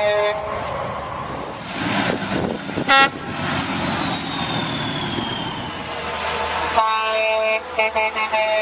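Vehicle horns sounding over steady road noise. There is one short, loud blast about three seconds in. Near the end a horn sounds, held at first and then broken into several short toots.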